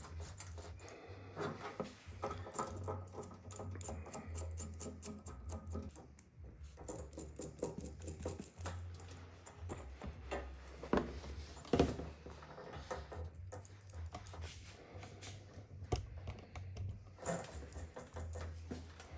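Light metallic clicks and rattles of a steel wire basket and its bolts and nuts being handled and fitted onto a scooter seat, with two sharper clacks a little past the middle, over faint music.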